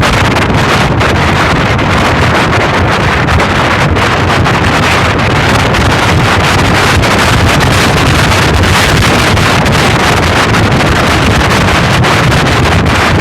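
Heavy wind noise on the microphone, a loud, steady rush, with road and vehicle noise underneath.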